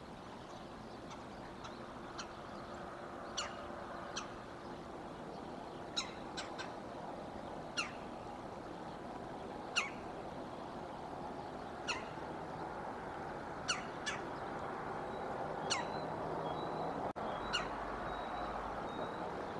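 A bird calling over and over: short, thin notes that each drop sharply in pitch, about one every two seconds, over a steady outdoor hiss.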